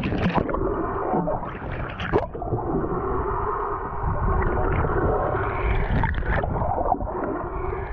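Water splashing as a camera goes under the surface, then muffled underwater sound picked up by the submerged camera: a steady rushing hiss with gurgles and a few knocks.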